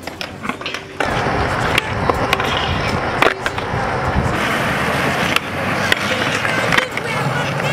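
Skateboard wheels rolling on concrete, starting about a second in, with several sharp clacks as the board's nose and tail tap down while it pivots during a walking-the-dog freestyle trick.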